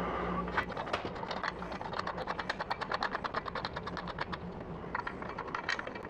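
Rapid, even clicking, roughly ten clicks a second, as the risers are screwed into the slide bracket, with a brief lull near the middle.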